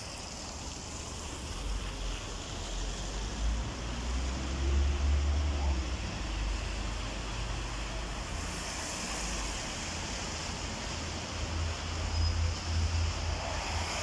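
Wind buffeting the microphone, a low rumble that swells and fades in gusts over a steady hiss of street noise.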